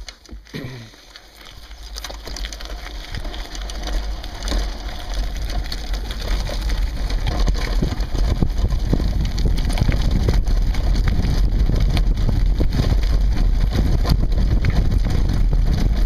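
Sport-On Explorer II all-terrain handbike rolling over a gravel forest track: tyres crunching and the bike rattling, with a low rumble. It grows steadily louder over the first several seconds as the bike gathers speed, then holds.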